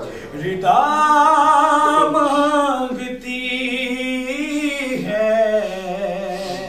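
A man singing a Shia devotional salaam in Urdu, unaccompanied, in three long drawn-out phrases, the last fading away near the end.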